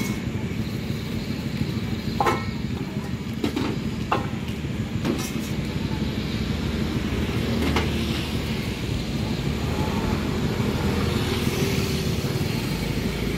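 Tongs and a spatula clinking against steel woks and clay lids, about five sharp knocks over the first eight seconds, over a steady low rumble of road traffic.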